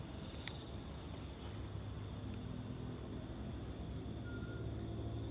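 Night insect chorus of crickets trilling steadily, with a short click about half a second in.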